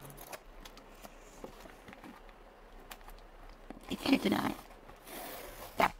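A cardboard shipping box being opened by hand, its packing tape cut and peeled off: faint taps and scrapes, a louder rustle about four seconds in, then a hissing rasp near the end that ends in a sharp click.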